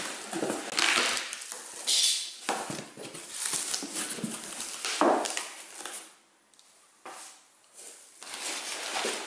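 Cardboard box flaps being opened and pushed about by gloved hands: irregular scraping and rustling of cardboard, with a sharper knock about five seconds in and a quieter stretch after it.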